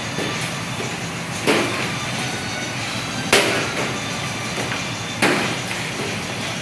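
Busy kitchen din: a steady rush of fans or machinery with three sharp knocks, evenly spaced about two seconds apart, as flatbread dough is worked with a metal rolling pin on a steel counter.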